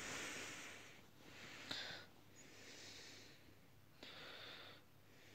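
Faint breathing close to the microphone: four soft breaths with pauses between them, and a small click in the second.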